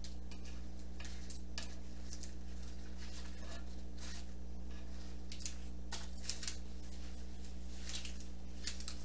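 Metal tongs clicking and scraping against a sheet pan as pieces of fried chicken are turned over, a scattering of light clicks, over a steady low hum.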